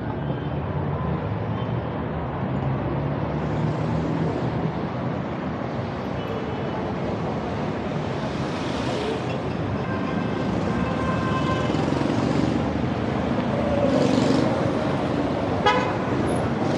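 Street traffic: cars and taxis passing with engine and tyre noise, and several car horn toots, the longest about two-thirds of the way through. A quick rattle of clicks near the end.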